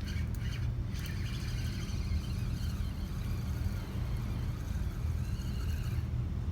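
Steady low rumble of wind buffeting the microphone, with faint high clicks and wavering whistly tones over it until about six seconds in.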